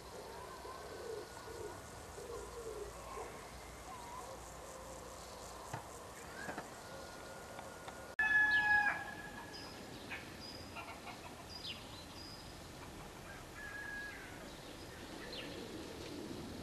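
Birds calling and whistling, with scattered short notes and glides and one louder call about eight seconds in.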